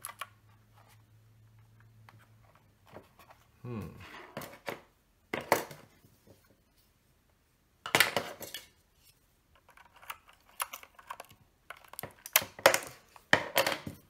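Plastic clicks and clatter as PBT keycaps are worked off a mechanical keyboard with a keycap puller, in about five short bursts.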